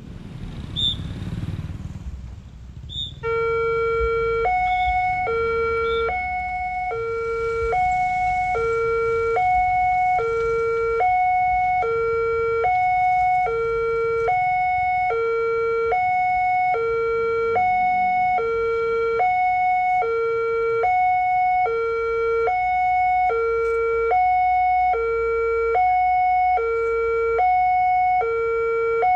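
Railway level-crossing warning alarm starting about three seconds in. It is an electronic two-tone signal that alternates a low and a higher tone, about one pair a second, and keeps going steadily. It warns that a train is approaching while the crossing lights flash and the Alkmaar-type barrier lowers.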